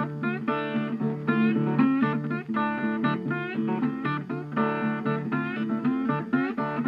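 Background music led by plucked guitar, with a quick run of notes whose pitch bends at the start, over a steady low accompaniment.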